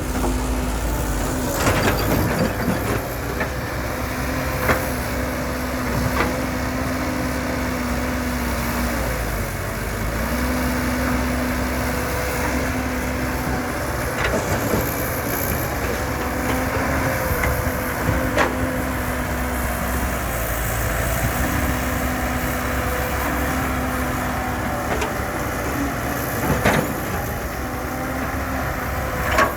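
Heavy earth-moving machinery with its engine running steadily. A low hum cuts in and out every few seconds, and there are occasional sharp clanks.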